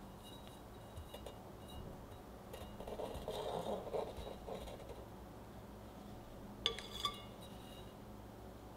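Metal offset spatula smoothing buttercream over a layered cake, a soft scraping swish in the middle, then two sharp ringing clinks about a third of a second apart as the metal spatula knocks against a hard edge.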